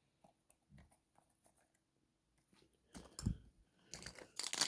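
Near silence, then from about three seconds in, a soft knock and a run of crinkling, crackling handling noises as a surprise egg is unwrapped and opened.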